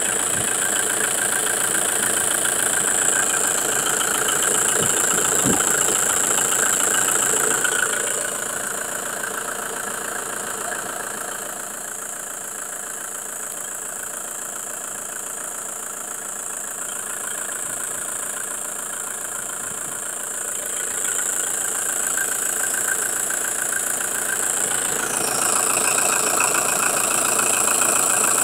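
Detroit Diesel engine running at idle, heard up close in the engine bay, with a steady high-pitched hiss over the engine that is louder at the start and again near the end.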